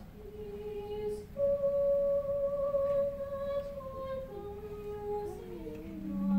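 Choir singing softly: a slow melody of long held notes that gets louder about a second and a half in, then steps downward near the end.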